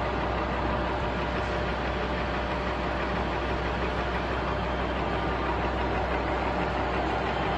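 Stanko 6A82III dual-spindle milling machine, its vertical head spindle running unloaded at 355 RPM: an even, steady machine running sound with no change in speed.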